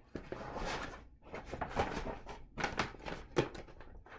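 Paper rustling and crinkling as a large printed pattern sheet is folded and put into an envelope, in a series of uneven rustles with a few sharper crackles.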